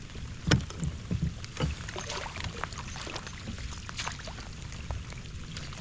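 Scattered knocks and light clatter of gear being handled in a plastic fishing kayak, over a steady low hiss of wind and water.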